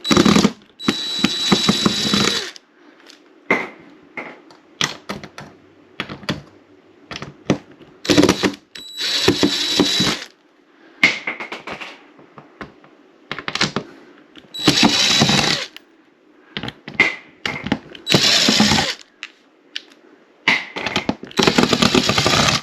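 A cordless drill/driver runs in short bursts of a second or two, about five times, backing out the screws that hold a ceiling speaker. Small clicks and handling noises fall between the bursts.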